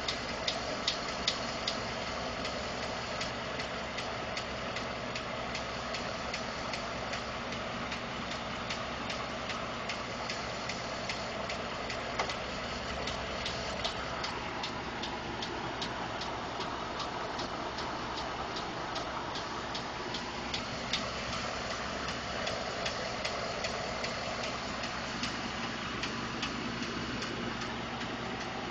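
2012 Ford F150's 5.0 V8 engine running warm at idle, with a steady, evenly spaced ticking from the engine and an occasional louder tick. The owner has been told this is normal injector or fuel-pump noise but doubts it.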